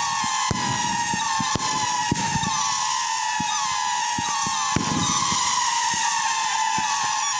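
Fireworks whistling: many overlapping whistles, each sliding slightly down in pitch, with scattered sharp cracks and pops.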